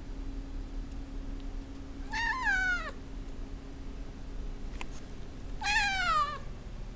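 Russian Blue cat meowing twice, about three seconds apart, each meow under a second long and falling in pitch at the end: a hungry cat asking for its dinner.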